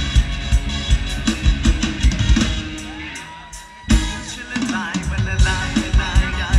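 A live Isan mor lam band playing an instrumental toei passage: a steady drum-kit beat with bass drum. About two and a half seconds in the beat drops away under a held, gliding note, and about four seconds in the full band comes back in with a hit.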